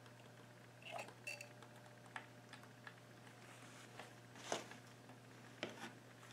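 Faint scattered light clicks and taps, the sharpest about four and a half seconds in, from the improvised wooden casting mold and tools being handled at the lead-casting pot, over a steady low hum.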